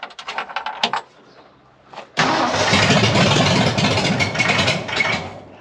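A quick run of clicks, then the freshly rebuilt Ford 460 V8 is cranked on the starter for about three seconds and fires a little, with no exhaust connected, before it stops.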